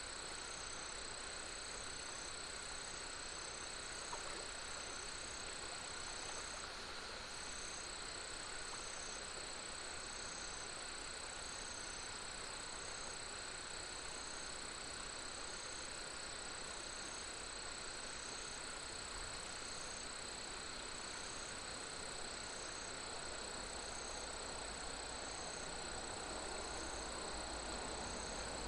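Insects, crickets among them, singing together in steady high trills, one of them in a regularly pulsing chirp, over a soft, even background hiss.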